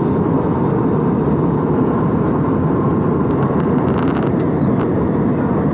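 Airliner cabin noise in flight: a steady low rushing drone of jet engines and airflow, with no change in level.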